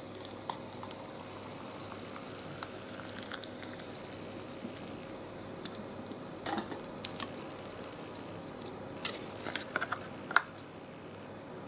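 Hot water poured into a paper cup of instant chicken ramen, the noodles fizzing with small crackles as they soak. Handling taps and clicks on the cup and its paper lid follow, the loudest a single sharp click near the end.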